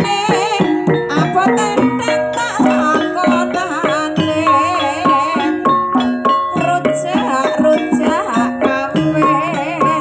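Banyumasan gamelan music: a sinden (female singer) sings a wavering line with vibrato over struck bronze gamelan notes, hanging gongs and a drum.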